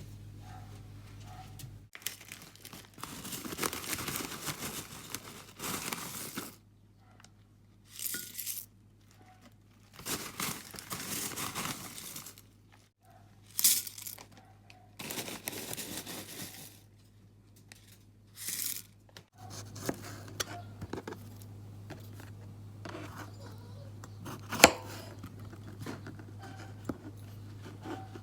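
Several separate bursts of rustling, crinkling noise, then a few light taps and clicks with one sharper click near the end, over a faint low hum.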